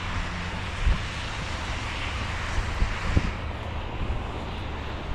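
Steady rushing noise of road traffic, with wind on the microphone and two low thumps, about one and three seconds in.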